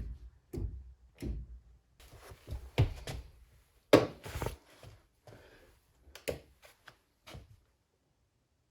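A series of irregular clunks and knocks, loudest about three and four seconds in, dying away to near silence in the last second.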